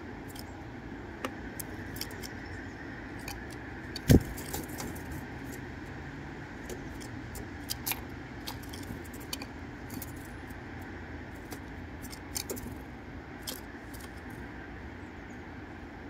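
Great tit hopping and pecking on a wooden feeder tray strewn with seeds and nut pieces: scattered sharp clicks and taps of beak and feet on wood and husks, with one loud thump about four seconds in, over a steady low background rumble.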